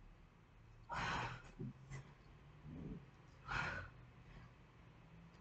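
Faint, forceful exhales from a woman straining through push-ups, two of them about two and a half seconds apart, with softer breath sounds between.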